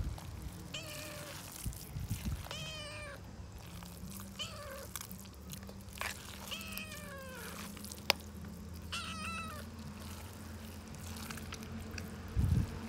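Hungry tabby kitten meowing for food, about five short meows, several falling in pitch. A sharp click partway through and a couple of dull knocks near the end.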